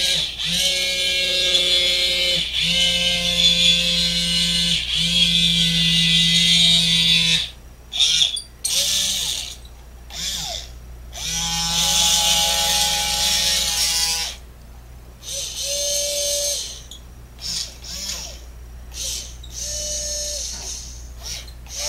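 OWI Robotic Arm Edge's small DC gearbox motors whirring as the arm is driven from its wired remote, in several runs that start and stop, the first lasting about seven seconds.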